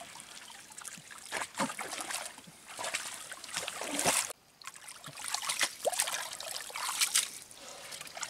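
Hands splashing and scooping in shallow muddy water, irregular splashes and trickles, with a short quiet gap a little past halfway.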